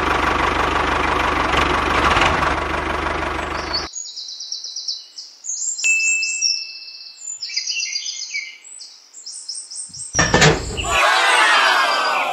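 Tractor engine running with a low pulsing hum for about four seconds, then cutting off suddenly. High bird chirping follows, and near the end a thump and a falling, sliding tone.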